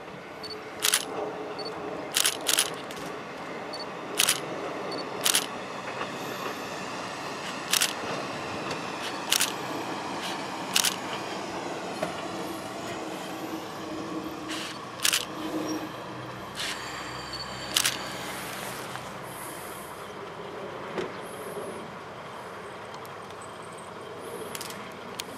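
Camera shutters clicking, a dozen or so single sharp clicks a second or two apart, over the steady running of a Kominato Railway KiHa 200 diesel railcar drawing near. The clicks thin out after the middle, with one more near the end, and a faint whine dips and rises in pitch in the middle.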